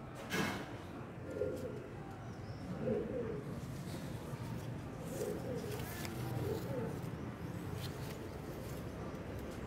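Dove cooing: about four short, low phrases spaced a second or two apart. There is a brief sharp noise at the very start.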